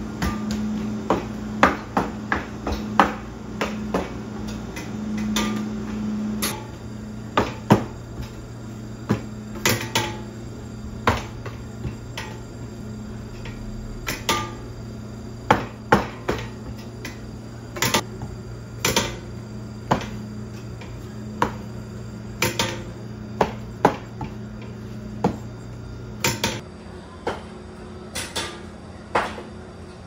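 Sharp knocks and clatters of hand work in a bakery kitchen, coming irregularly about once a second, over a steady low machine hum that drops partly away near the end.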